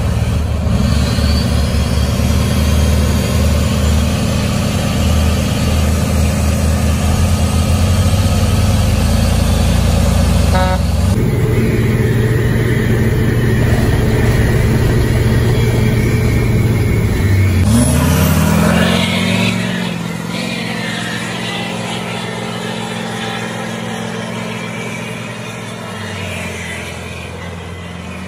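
Diesel truck engines of a Cummins cabover semi and Duramax pickups running hard at full throttle under a heavy pulling load, loud and steady, with abrupt cuts between shots about a third and two-thirds through, one of them from inside the semi's cab. After the second cut an engine revs up and settles, and the sound then slowly grows quieter.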